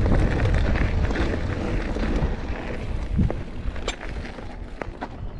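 Wind buffeting the camera microphone over mountain bike tyres rumbling on a dirt jump trail, with scattered sharp clicks and knocks from the bike; the rumble dies down toward the end.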